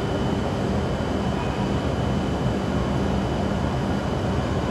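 Steady low rumble and hum of a shinkansen station platform, with a faint steady high-pitched whine above it.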